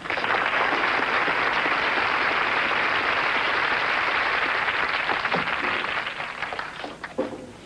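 Studio audience applauding, starting suddenly and dying away after about six seconds.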